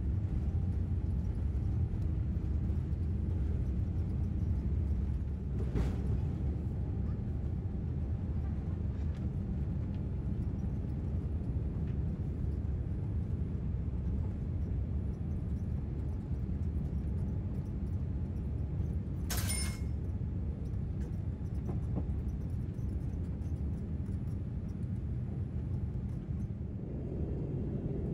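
Cabin noise in a Boeing 787 during takeoff: a steady deep rumble of the engines and rushing air as the jet races down the runway and climbs out. A sharp click sounds about two-thirds of the way through, with a fainter one earlier.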